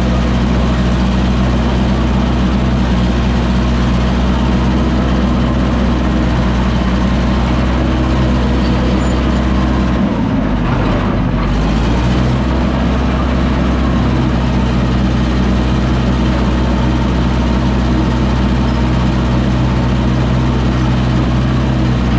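Diesel engine of a piece of earthmoving equipment running steadily, its pitch dipping briefly about ten seconds in.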